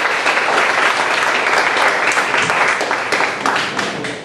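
Audience applauding, the clapping starting to fade near the end.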